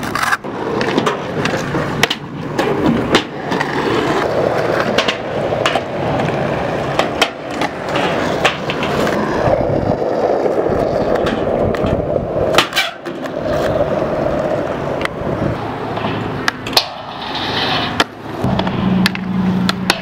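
Skateboard wheels rolling on asphalt, with repeated sharp clacks of the board's tail popping and the deck landing. A steady low hum comes in near the end.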